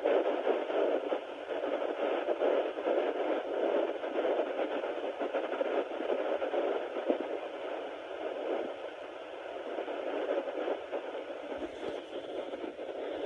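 Sonoline B handheld fetal Doppler's speaker giving a steady static whoosh, with a few brief scratchy crackles from the probe moving over the belly. It is searching for a 9-week fetal heartbeat, and the user is not sure one is being picked up.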